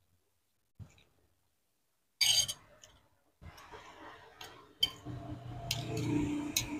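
Eating sounds: a metal spoon clinking and scraping against a ceramic plate, loudest once about two seconds in, then several lighter clicks as food is scooped up. From about five seconds in a low mouth sound goes on along with the chewing.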